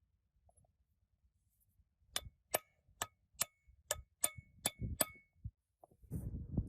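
About eight sharp metal-on-metal blows, evenly paced a little over two a second, each ringing briefly: a hammer striking a steel part. A rough low rumbling noise begins near the end.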